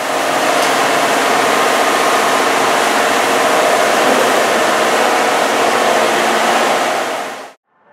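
Automatic car wash equipment spraying foam and water onto a car: a loud, steady hiss of spray with a humming tone underneath. It cuts off suddenly near the end.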